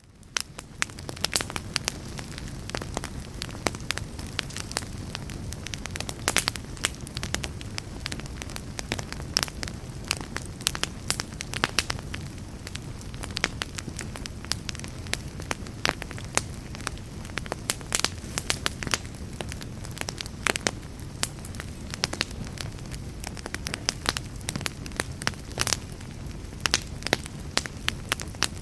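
Wood fire burning with frequent irregular pops and crackles over a steady low rumble of flames.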